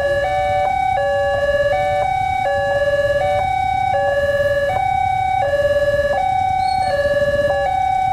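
Two railway level-crossing warning sirens sounding at once, each stepping back and forth between a high and a low tone, out of step with each other so their two-tone patterns clash. A low steady rumble runs underneath.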